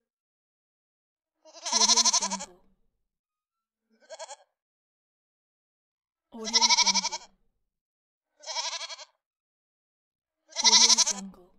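Goat bleating: five wavering calls separated by silence, three long loud ones and two shorter, fainter ones.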